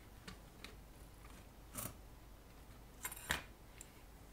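Light clicks and rustles of hands working a circuit board and the metal oscilloscope chassis, with a short clatter about three seconds in.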